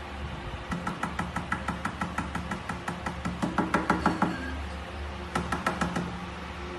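Rapid tapping or knocking, about eight taps a second, lasting about three and a half seconds. A shorter run of taps follows near the end.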